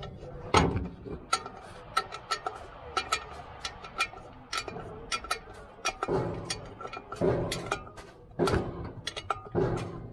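Steel ring spanner working the nuts on a cast-iron pipe flange: a run of sharp metallic clicks and clinks as the wrench is turned and refitted on the nut, with several short scraping strokes in the second half.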